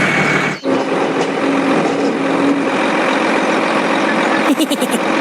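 Mini tractor engine running steadily, with a sudden brief dip about half a second in and a few quick clicks near the end.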